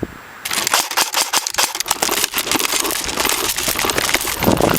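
A dense, irregular run of clicks and crackle, starting about half a second in after a brief hush.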